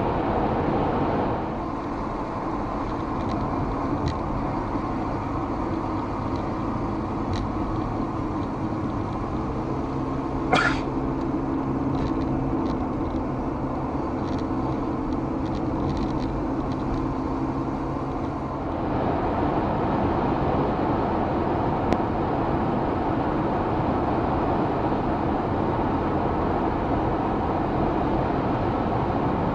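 Steady road and tyre noise heard from inside a moving car. In the middle stretch a steadier low engine hum runs under it, with one brief rising squeak about ten seconds in.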